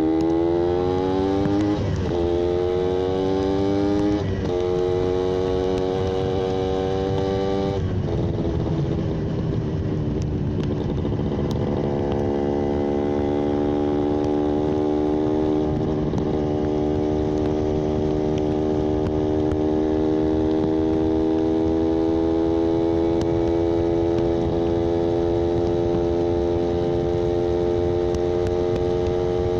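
Yamaha 125ZR's single-cylinder two-stroke engine under way. It revs up and shifts up twice in the first few seconds. It eases off and wavers for a few seconds, then holds a steady cruising note that creeps slightly higher.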